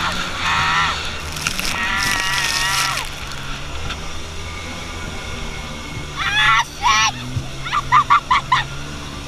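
High wavering shrieks, then a rapid run of short laughs about eight seconds in. Underneath runs the steady drone of a Kawasaki Jetmate jet boat's engine, with the hiss of spray.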